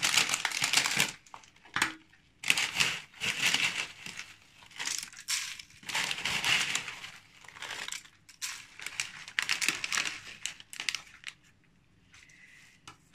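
Crinkly packaging handled by hand, crinkling and rustling in bursts of about a second with short pauses, dying down near the end.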